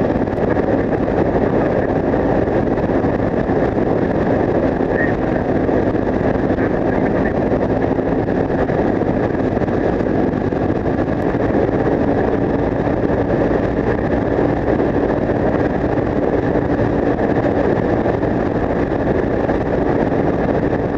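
Yamaha TW 125's single-cylinder engine, fitted with an Akrapovic exhaust, running at a steady cruise, under strong wind rush on the bike-mounted microphone.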